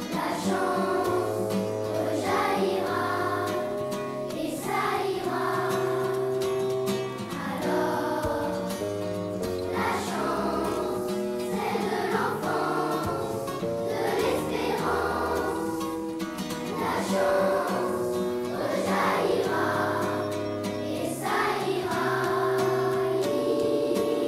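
A children's choir singing a song in held, melodic lines over instrumental accompaniment with a sustained bass line.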